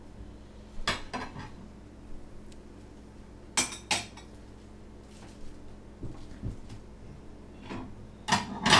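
A knife and other utensils clinking and knocking against a plate and cutting board in a few scattered knocks, the loudest cluster near the end, over a low steady hum.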